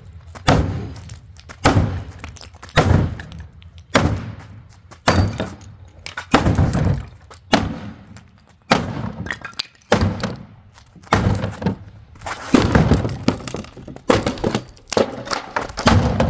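A hand tool repeatedly knocking against a painted wooden furniture piece, sharp thunks roughly once a second, some coming closer together.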